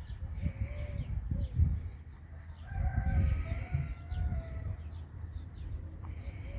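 Chickens clucking in short, soft calls in a couple of clusters, over a low rumble.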